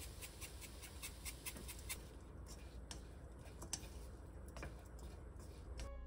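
Faint quick ticks in the first two seconds as sesame seeds are sprinkled into a nonstick wok, then sparser light clicks of wooden chopsticks tossing strips of bellflower root against the pan.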